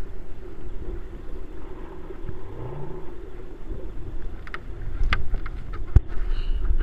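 Shallow lagoon water lapping and sloshing against a camera held at the surface, over a steady low rumble; short splashy clicks join in from about halfway through.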